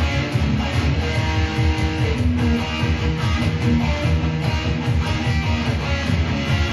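Kramer Baretta electric guitar being played: a riff of rapidly repeated low notes with higher notes over them.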